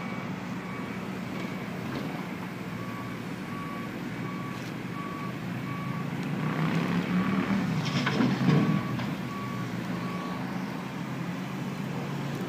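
Diesel engine of a Liebherr A 904 C Litronic wheeled excavator running, with a reversing alarm beeping about once a second throughout. About halfway through, the engine revs up under hydraulic load and there is a louder rush and clatter as the bucket swings over and dumps its load into the dump truck, then it settles back.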